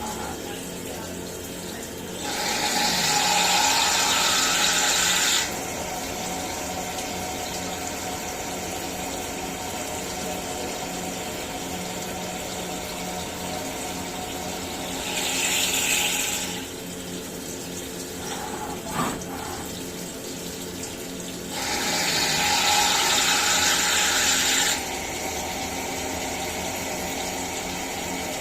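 CNC milling machine running with a steady hum of several tones. Three loud hissing bursts sound over it, the first and last about three seconds long and the middle one shorter. A single sharp click comes a little before the last burst.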